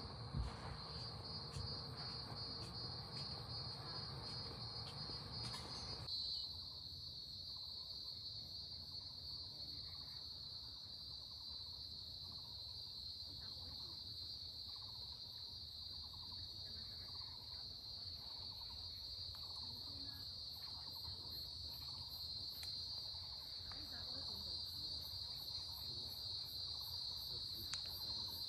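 Steady high-pitched insect chorus, a continuous shrill trill. For the first six seconds a low rumble lies underneath, then stops abruptly.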